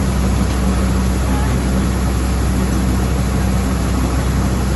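Combine harvester running steadily: a constant diesel engine drone under the rush of its working machinery.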